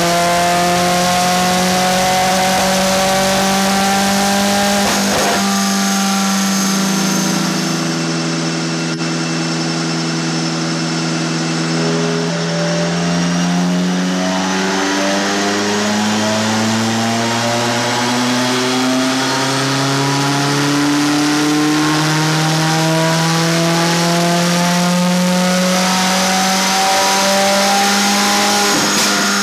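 Tuned Subaru WRX STI's turbocharged flat-four engine running under load on a chassis dyno. Its pitch climbs slowly in long sweeps, with several sudden changes in pitch along the way.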